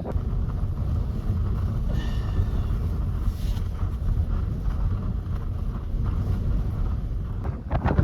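Blizzard wind blowing hard and rumbling on the microphone, a steady low buffeting roar. A few sharp knocks or crunches start near the end.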